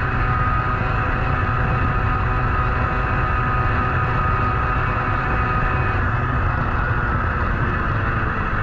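Zündapp moped's small two-stroke engine running steadily under way, with wind rushing over the microphone.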